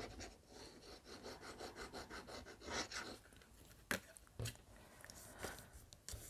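Faint quick rubbing strokes on paper, about five a second, as glue is put on a cardstock piece and it is pressed in place; they stop about three seconds in, followed by a couple of light clicks of paper being handled.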